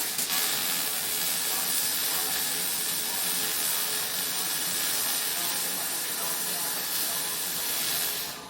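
MIG welding arc laying a continuous bead: a steady, loud crackling hiss that stops abruptly near the end as the trigger is released.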